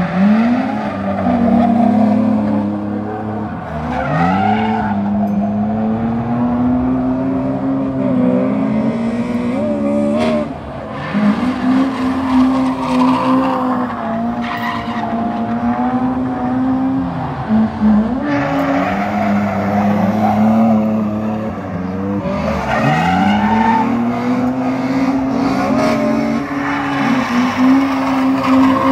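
Drift car's engine revving hard, its pitch held high and then dipping and climbing again every few seconds, with tyres screeching as the car slides sideways.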